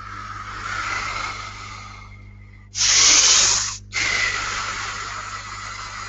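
Breath hissing into a headset microphone, with a loud, forceful exhale about three seconds in that stops abruptly, then the hissing breath resumes.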